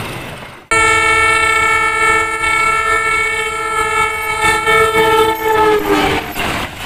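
Train horn: the tail of one blast dies away, then about a second in a new long blast starts abruptly, a chord of several steady notes held for about five seconds. Near the end it drops slightly in pitch and fades into rushing noise.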